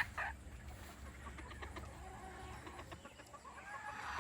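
Chickens clucking softly: a few faint short clucks and small clicks, a little louder near the end.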